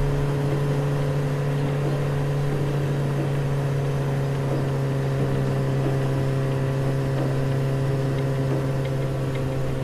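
Motor scooter's engine running at a steady speed while riding, a constant hum over a rush of wind and road noise.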